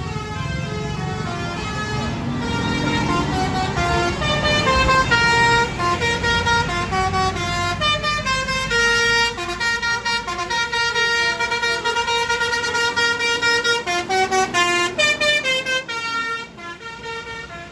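Bus basuri (telolet) musical air horn playing a tune of short notes that step up and down in pitch. A low engine rumble runs underneath for the first few seconds.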